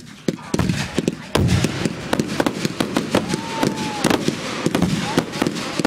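Aerial fireworks going off overhead: two heavy booms in the first second and a half, then a dense run of crackling pops and bangs.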